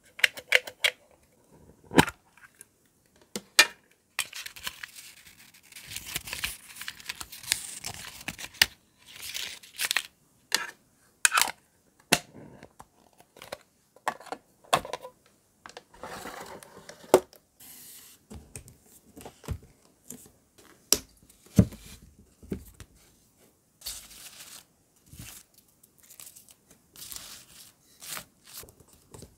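Handling of stationery: a string of sharp taps and clicks as a small metal sticker tin and a clear plastic case are picked up and set down, with longer stretches of paper rustling.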